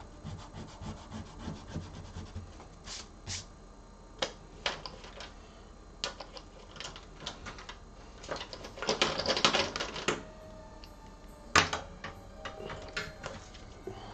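Drawing tools working on sketchpad paper: irregular light taps and scratches, with a loud second or so of quick back-and-forth rubbing about nine seconds in and a sharp click a couple of seconds later.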